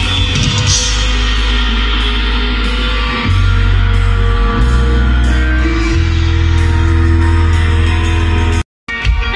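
Rock band sound-checking through a stage PA: electric guitar and drums over long, held bass notes that change pitch a few times. The sound cuts off abruptly for a moment near the end.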